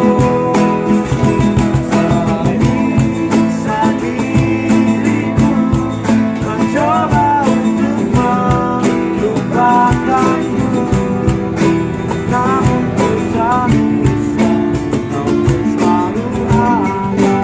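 Music: strummed acoustic guitar with a wavering melody line over it.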